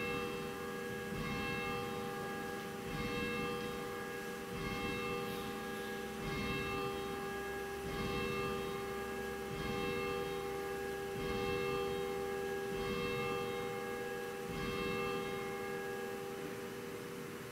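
Church bell ringing with a stroke about every second and a half, its tone humming on between strokes. The strokes stop near the end and the ring fades away.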